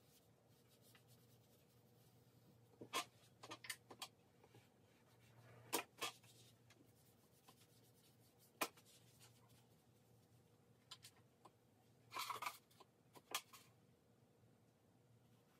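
Faint scratching and rubbing of charcoal on drawing paper, in a handful of short scattered strokes, the busiest cluster about twelve seconds in.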